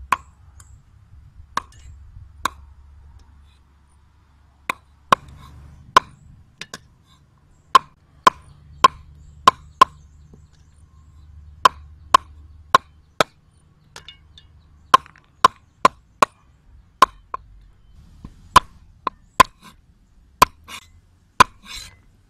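Cleaver chopping on a wooden chopping board: sharp single knocks at irregular intervals, roughly one or two a second, as the claw tips are cut off raw chicken feet.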